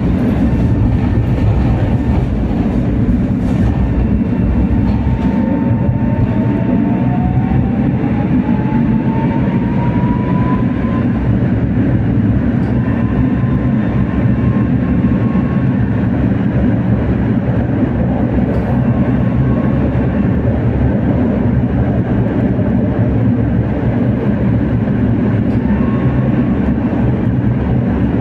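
Two-car Tatra T3R.PLF tram running on street track: a steady rumble of wheels on rails and running gear. About five seconds in, an electric traction-motor whine rises in pitch over several seconds as the tram picks up speed.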